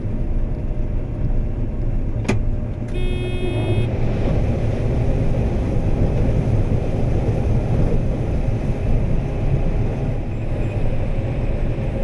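Combine harvester running steadily while shelling corn, a dense low rumble heard from the cab. A sharp click comes just over two seconds in, and a short pitched beep follows about a second later.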